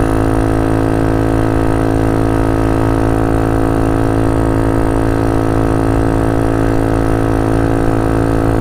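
GY6 single-cylinder four-stroke scooter engine with an open exhaust, running on a steady throttle while the scooter is ridden at speed, a steady drone holding an even pitch.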